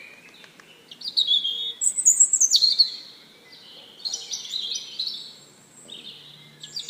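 Birds chirping: a string of short high calls and whistled phrases, several of them sliding down in pitch.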